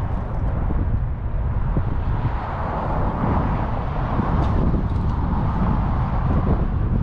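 A car passing on the road, its tyre and engine noise swelling over a couple of seconds and then fading, over wind rumbling on the microphone.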